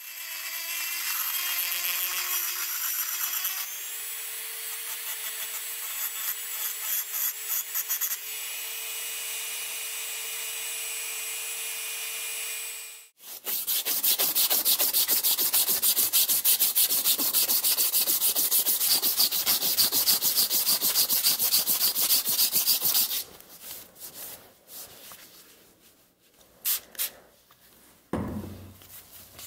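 A handheld rotary tool with a sanding drum whines steadily as it grinds a knife's handle, stepping up slightly in pitch about four seconds in, and cuts off suddenly about thirteen seconds in. Then an abrasive belt rasps against the steel blade for about ten seconds, followed by a few scattered light handling knocks.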